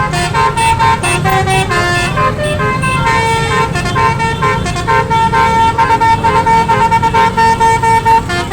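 Telolet horn, a set of multi-tone horns, playing a tune of changing notes over a low rumble. In the second half it breaks into a quick stutter of short repeated toots.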